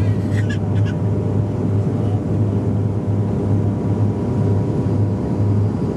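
Cabin noise of a Bombardier Dash 8 Q400's turboprop engines and propellers on final approach with the landing gear down: a steady drone with a strong low hum, heard from inside the cabin.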